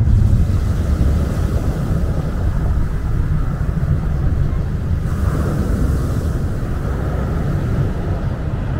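Small sea waves breaking and washing up a pebble beach over a steady low rumble. A brighter hiss of wash comes in from about halfway through and fades near the end.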